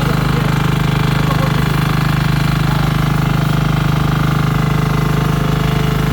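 Diesel engine of a heavy-duty pressure washer running steadily, with a fast, even throb.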